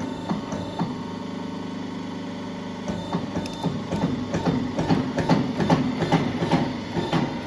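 Crimping press clamping the aluminium ring onto an air strut's rubber bellows: a steady machine hum with a few clicks, then from about three seconds in a rapid, irregular clatter of mechanical knocks.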